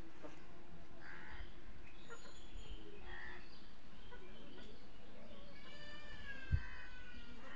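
Bird calls: a few short harsh calls, then a longer wavering call near the end, with a single low thump just before it.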